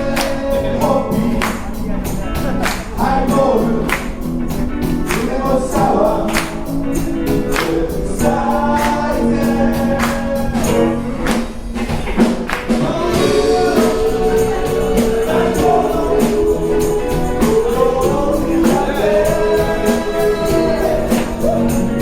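Live band playing with sung vocals over a steady beat, with tambourine.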